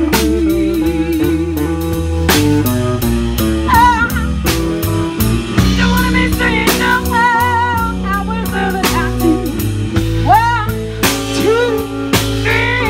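Live blues band playing: electric guitar, electric bass and drum kit, with a woman singing over them.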